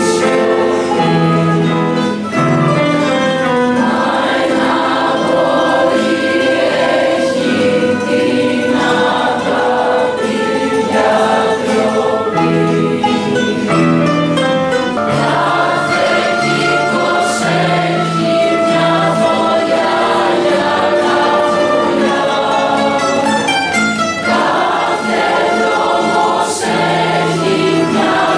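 Mixed youth choir singing with acoustic guitar accompaniment.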